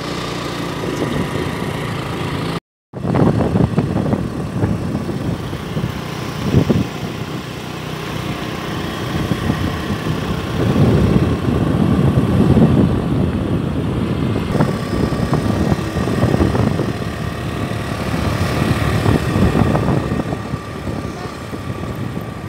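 Motor vehicle running on the move, an uneven low rumble with a faint steady tone above it, broken by a brief gap about three seconds in.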